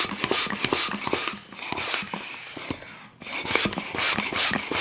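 Hand pump inflating a 260Q modelling balloon: quick strokes of rushing air, about four a second, pausing for under two seconds in the middle before the pumping resumes.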